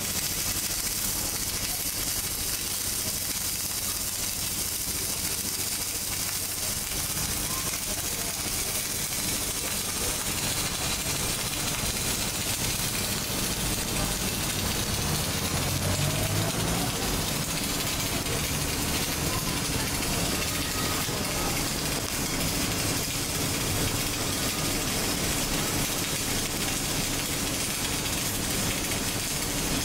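Gas-shielded MIG welding arc, shielded with carbon dioxide, running continuously with a steady hiss as the welder lays a bead.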